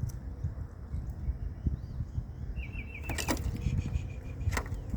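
Low wind rumble on the microphone, with a quick high trill of chirps about two and a half seconds in and two sharp knocks near the end.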